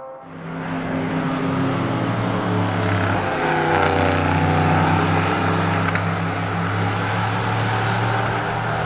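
V8 engine of an LMP3 sports prototype race car passing at speed, loudest about four seconds in, then running on steadily as the car heads away.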